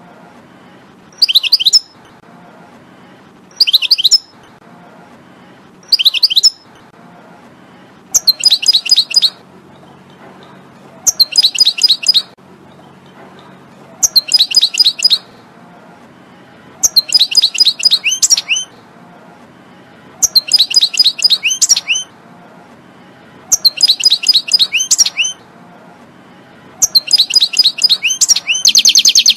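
European goldfinch singing: bright phrases of rapid twittering notes, repeated about every two to three seconds. The first few phrases are brief and the later ones longer and fuller. A faint low hum sits underneath.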